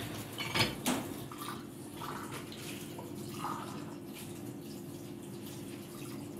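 Kitchen tap running steadily into a stainless steel sink as dishes are rinsed by hand, with a couple of clinks of crockery about half a second in.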